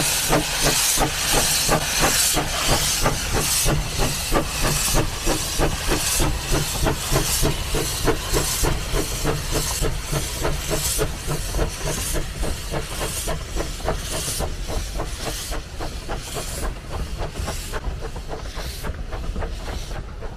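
Narrow-gauge Baldwin steam locomotive pulling away with a train: sharp exhaust chuffs that steadily quicken, over a loud hiss of steam venting from the open cylinder drain cocks. The hiss and beats grow fainter towards the end as it moves off.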